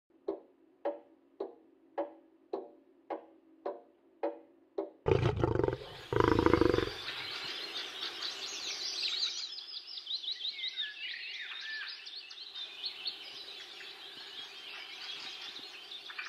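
Intro sound effects: a run of evenly spaced pulses, about two a second, over a low hum, then a loud roar in two parts about five seconds in. A steady wash of fast, high chirping follows.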